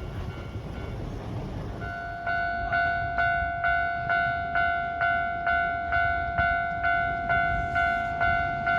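Japanese railway level-crossing warning bell starting about two seconds in and ringing steadily at about two strikes a second, each strike a bright ringing tone that fades before the next.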